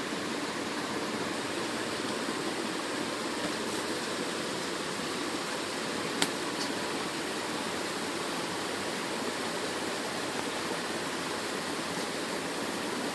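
Steady, even hiss of room noise, with a single sharp click about six seconds in as the glass LCD panel is lifted off the backlight.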